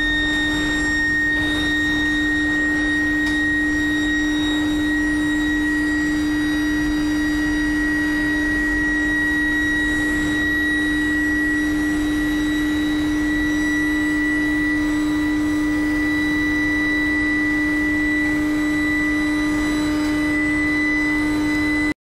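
Billet induction heating furnace running: a steady low electrical hum with a high-pitched whine above it that creeps slightly higher in pitch.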